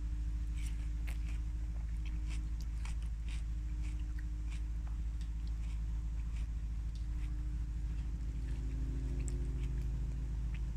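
A person chewing fruit, with scattered short wet mouth clicks, over a steady low hum.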